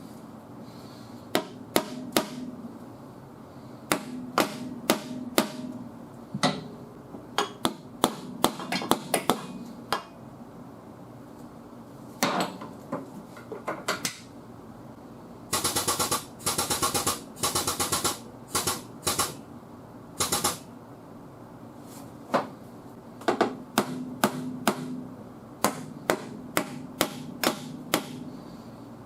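Hammer blows on car sheet metal, working down the dented quarter panel while it is pulled out. They come in irregular groups of sharp strikes, with a run of short, rapid rattling bursts about halfway through.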